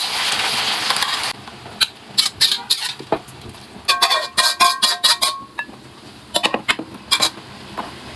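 Metal kitchenware clattering: a utensil knocking against cookware in a run of sharp clicks, several strikes near the middle ringing briefly. About a second of steady hiss comes first.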